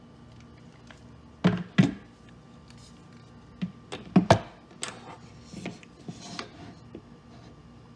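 AR-15 upper and lower receivers knocking and clacking against a tabletop as they are handled and set down. The knocks are scattered and sharp, and the loudest come in two close pairs, about one and a half seconds and about four seconds in.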